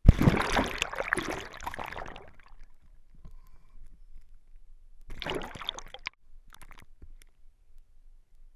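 Water splashing and sloshing around a GoPro's waterproof housing as it is pushed through shallow flood water. It starts suddenly and loud for about two seconds, fades, then comes back for about a second five seconds in.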